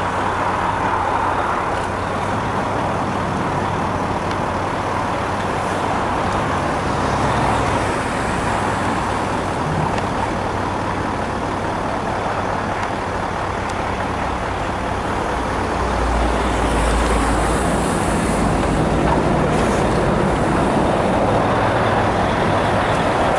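Steady road traffic noise, with a louder low rumble of a vehicle passing about two-thirds of the way through.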